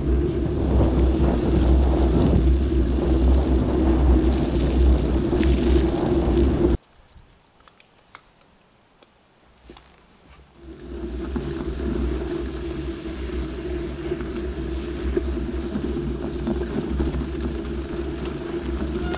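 Wind rumble on the microphone of a camera riding on a moving mountain bike, with steady riding noise underneath. About 7 seconds in it drops away almost completely for some three seconds, then the rumble comes back and stays steady.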